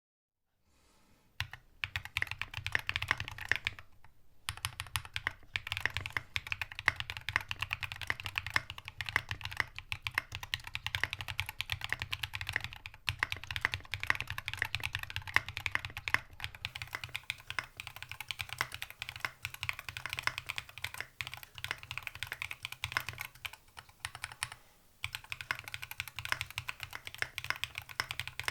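Fast continuous typing on a mechanical keyboard: Jacky Studio Piggy with lubed KTT Halu Halo switches on an aluminium plate, no sound dampening, and SA-profile keycaps. The typing starts about a second and a half in, with brief pauses near four seconds and a few seconds before the end.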